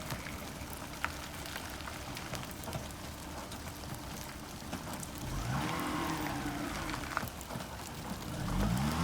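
Steady rain with scattered drop ticks. About five seconds in, a car engine comes in and revs, its pitch rising and falling. It grows louder and rises again near the end.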